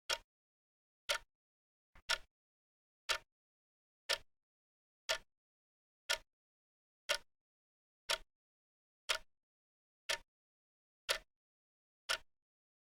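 Wristwatch ticking steadily, one sharp tick a second.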